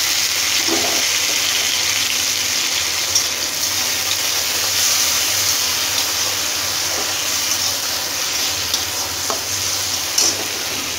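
Chopped tomatoes sizzling in hot oil with browned onion, cumin and dried red chillies in a steel kadhai: a steady frying hiss, with a few clicks and scrapes of a metal spatula stirring against the pan.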